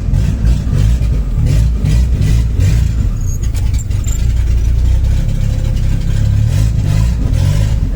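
Turbocharged VW AP 1.9 engine of a Voyage, with a Holset HX40 turbo and 350T cam, running loud and deep while the car is driven, its level and pitch shifting unevenly.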